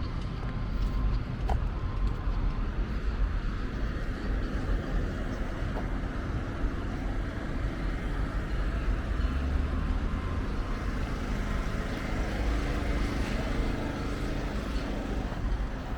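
Steady city street noise: a continuous low rumble of road traffic with no single standout event.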